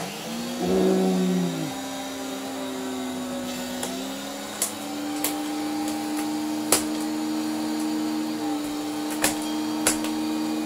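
Miele canister vacuum cleaner with an EB01 electric powerhead fitted, switched on: the motor starts suddenly and spins up, then runs steadily, its pitch stepping up about four seconds in. A handful of sharp clicks sound over the running motor.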